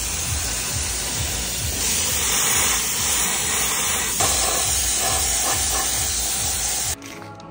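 Compressed-air touch-up spray gun hissing steadily as it sprays black paint onto interior trim, cutting off near the end when the trigger is released.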